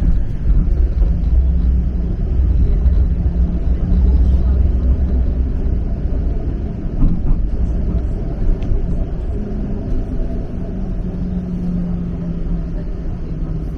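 A TTC streetcar running along, heard from inside: a loud, steady low rumble of wheels and motors with a low hum held through it.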